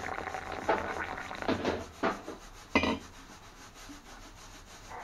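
Hot water pouring in a thin stream into a ceramic mug, a splashing hiss that stops about two seconds in. Two sharp knocks follow, under a second apart.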